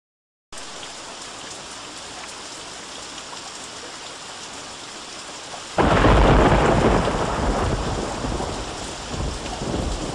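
Steady rain, then about six seconds in a sudden loud clap of thunder that rumbles on and slowly fades.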